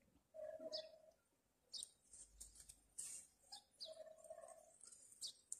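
Faint bird chirps: a handful of short, high, falling calls scattered through a near-silent moment outdoors.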